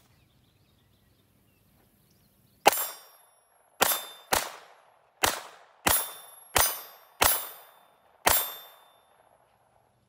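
Eight single shots from a Glock 44 .22 LR pistol, the first about two and a half seconds in and the last about two seconds before the end, at uneven gaps of half a second to a second. Each is a sharp crack that dies away within about half a second.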